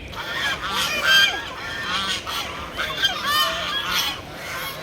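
A flock of waterfowl calling, many short calls overlapping in a rapid chatter, starting abruptly.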